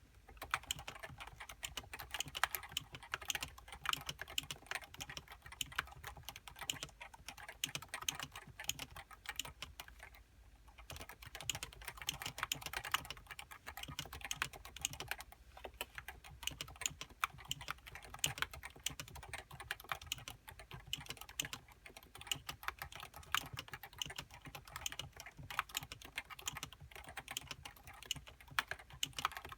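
Typing on a Topre Realforce 87U keyboard with variable-weight Topre electrostatic capacitive switches and HiPro keycaps: a fast, continuous run of keystrokes, with a short pause about ten seconds in.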